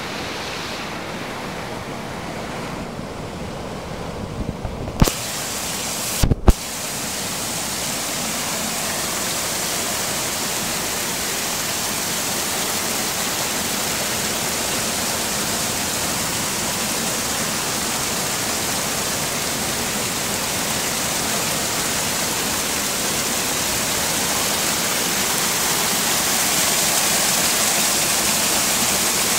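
Spring water rushing and splashing as it gushes from under a rock and pours from a wooden spout into a pool, a steady rush that grows gradually louder. A few brief knocks about five and six seconds in.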